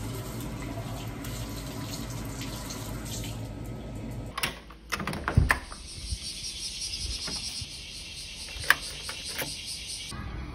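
Tap water running into a washbasin as hands are washed. About four seconds in it gives way to several sharp clicks and knocks of a door handle and lock, then a steady hiss with one more sharp click near the end.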